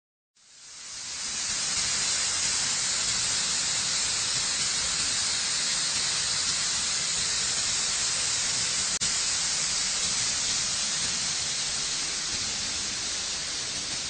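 Steady rushing hiss of a waterfall, water pouring down a rock face, fading in over the first second or two. A single sharp click comes about nine seconds in.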